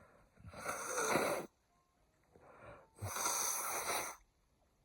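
A man's two long, heavy breaths, each about a second, in the middle of an allergy sneezing fit.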